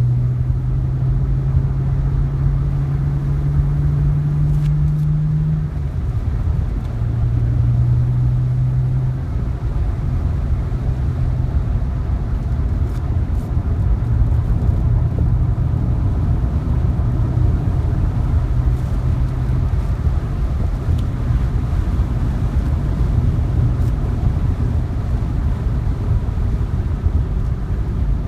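2010 BMW 3 Series engine heard from inside the cabin on track. Its note climbs for about five seconds under throttle, then falls away, and runs lower and steadier after that, over a constant heavy rumble of road and wind noise.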